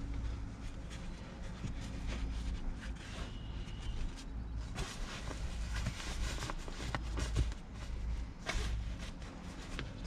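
Rustling and scattered clicks of a padded car seat protector being pulled and smoothed by hand over a rear seat, busiest in the second half, over a steady low rumble.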